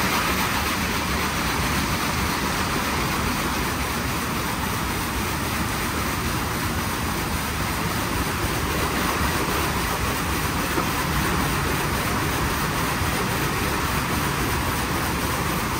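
WashTec SoftCare² Takt rollover car wash running, a steady rushing noise of the gantry at work.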